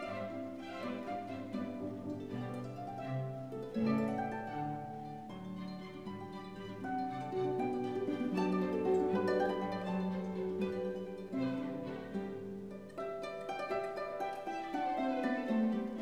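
Background instrumental music with string instruments, a mix of plucked and bowed notes.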